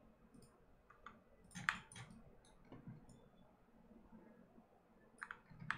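Faint, scattered clicks of a computer mouse and keyboard, about eight short clicks spread irregularly through the stretch.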